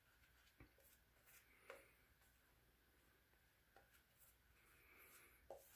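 Near silence, with faint scratchy strokes of a shaving brush working lather over the face and a few light clicks.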